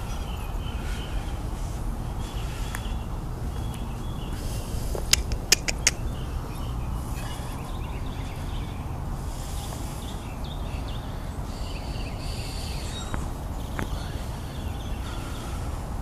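Sandhill crane striking the glass window with its beak as it fights its own reflection: a quick run of four sharp taps about five seconds in, over a steady low rumble.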